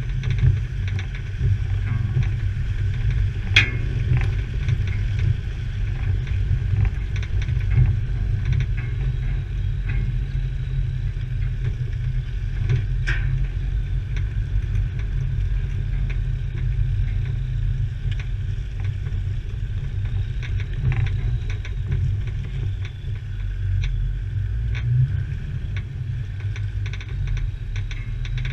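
Land Rover driving a rough, muddy green lane: a steady low rumble from the vehicle, with scattered knocks and rattles, the sharpest about three and a half seconds in and again near thirteen seconds.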